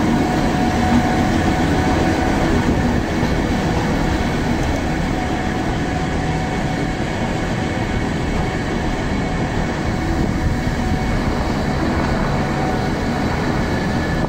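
The electric rack-railway train of the Gornergrat line running uphill, heard from aboard as a steady rumble of wheels and drive with a faint, even whine.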